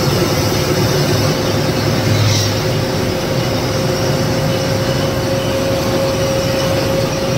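Lorry under way: a steady engine drone and road noise, with a steady whine running through it.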